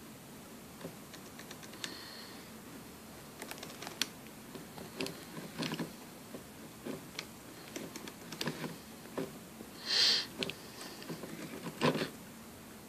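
Small scattered clicks, taps and rustles of hands working a plastic automotive wiring connector and its wires on a fuel pump assembly, busier from about three seconds in, with a louder rustle near ten seconds and a sharp click near the end.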